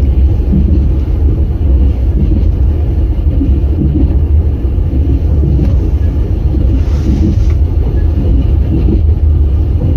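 Passenger train running at speed, heard from inside a carriage: a steady low rumble.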